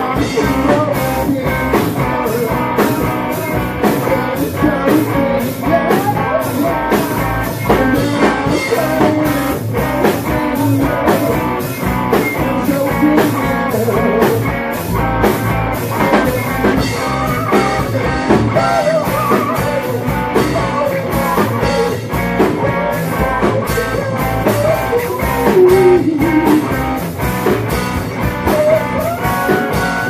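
A rock band playing live: electric guitar and drum kit, with a singer's voice over them.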